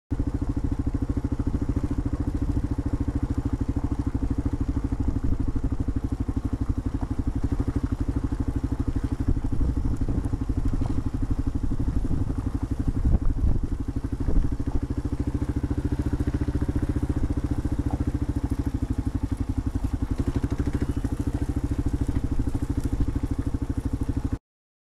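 Motorcycle engine running steadily at low speed, an even pulsing rumble, with a few louder thumps in the middle; it cuts off suddenly near the end.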